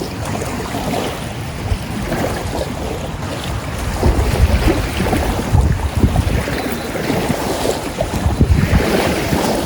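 Strong wind buffeting the microphone over choppy river water, in gusts that grow stronger about four seconds in.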